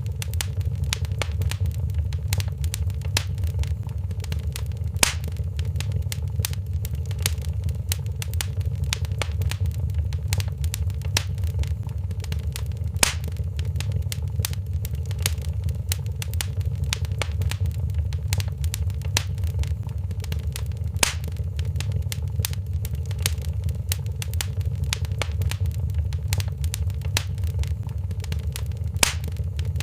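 Wood fire crackling in a fireplace: constant small crackles with a few sharper pops about every eight seconds, over a steady low rumble.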